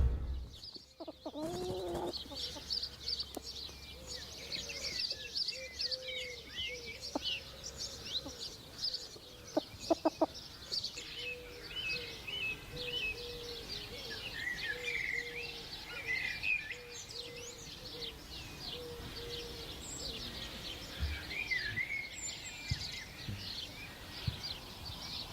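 Many small birds chirping and twittering, with a lower note repeating in short pulses under them for much of the time and a few clicks about ten seconds in.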